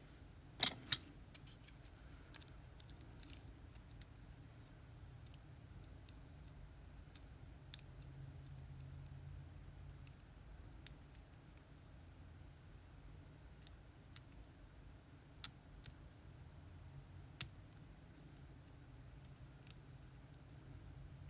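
Faint, scattered metallic clicks and ticks of a lock pick and tension wrench working the pins inside a Lockwood 334B45 lock, with two sharper clicks about a second in.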